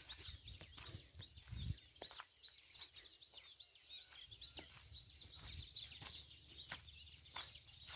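Early-morning chorus of many small birds, faint, with short quick chirps overlapping throughout. A thin steady high note joins about halfway through.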